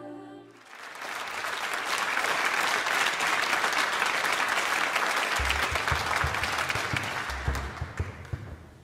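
Audience applauding as the last sung note dies away; the clapping thins out near the end. A few low thumps come in from about halfway through.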